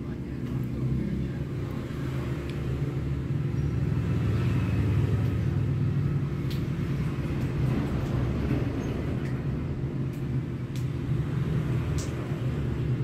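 Steady low machine hum with several fixed low pitches, and a few faint ticks on top.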